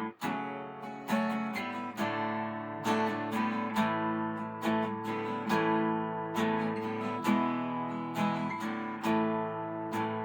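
Acoustic guitar strumming chords in a steady rhythm, an instrumental break between sung verses; the sound cuts out for an instant just after the start.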